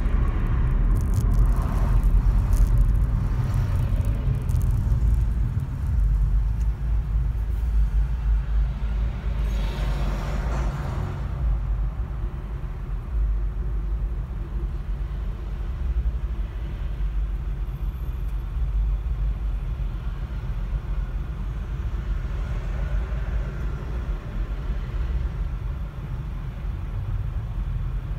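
Car cabin rumble with road and tyre noise as the car rolls up to a traffic queue, easing off about a third of the way through into a steady low rumble while the car sits stopped in traffic.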